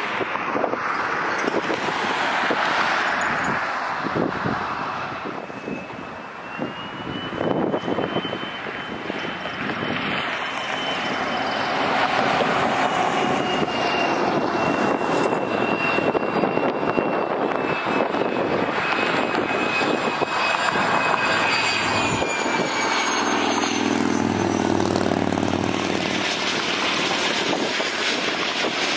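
Jet engine noise. After a few seconds of a regional jet's engines on the runway, a twin-engine Cessna Citation business jet on final approach with gear down comes in with a steady high turbine whine. The whine falls in pitch as the jet passes overhead, and a lower engine drone follows over the last few seconds.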